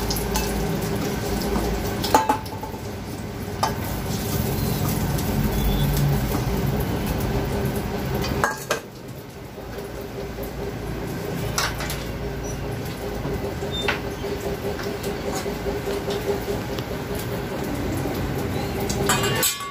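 A wooden spatula and eggs knocking against a steel kadai and a steel bowl as fried eggs are lifted out of the oil: a few separate sharp clinks over a steady background hiss.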